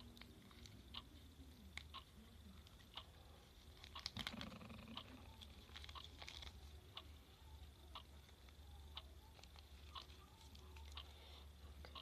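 Near silence with faint, scattered clicks and taps from handling slime ingredients and containers, and a short flurry of them about four seconds in.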